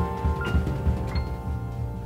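Background music: held notes with a few bell-like struck notes over a low pulsing beat.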